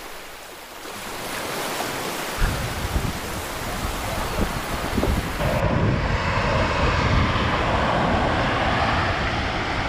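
Surf breaking and washing up a sandy beach, with wind rumbling on the microphone. The wash grows louder about halfway through.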